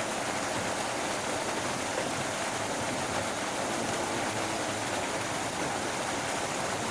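Steady rushing of running water, an even noise with no distinct events.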